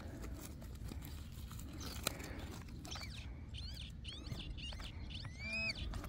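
Small birds chirping: a run of short rising-and-falling calls starting about three seconds in, the last one longer, with one sharp click about two seconds in.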